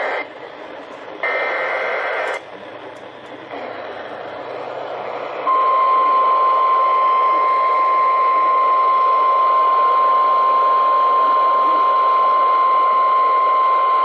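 Emergency Alert System severe thunderstorm warning played through an Eton hand-crank emergency radio: a screeching SAME data burst of about a second, starting about a second in, then a few seconds of radio hiss. About five and a half seconds in, a loud, steady single attention tone near 1 kHz begins and holds.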